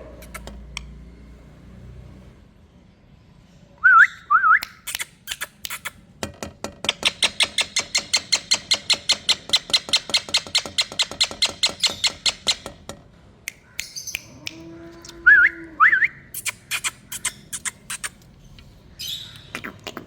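Indian ringneck parakeet calling: short zigzag whistled notes about four seconds in and again near fifteen seconds, and between them a long rapid run of sharp repeated chirps, about seven a second, lasting around six seconds.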